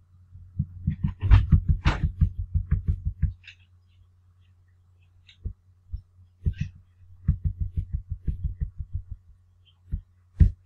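Computer mouse scroll wheel turned in two quick runs of soft clicking thumps, a few seconds apart, over a steady low electrical hum.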